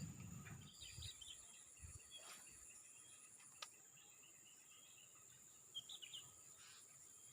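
Faint insect chorus: a steady high-pitched buzz, with a few short chirps and some soft low thumps in the first second.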